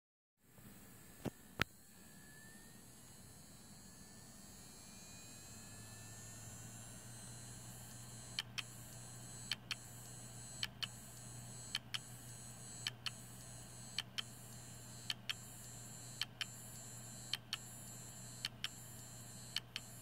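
Seagate Barracuda 7200.11 3.5-inch hard drive spinning up with a faint rising whine that settles into a steady hum. From about eight seconds in, its heads click in double clicks about once a second, the repeated clicking of a failing drive. Two sharper, louder clicks come about a second in.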